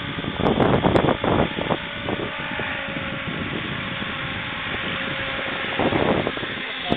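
Radio-controlled scale electric helicopter hovering low: a steady whine from its electric motor and rotor. Gusts of wind buffet the microphone about half a second in and again near the end.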